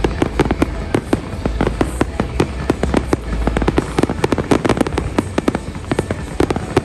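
Fireworks display going off: a rapid, irregular run of sharp bangs and crackles, several a second, over a steady low rumble.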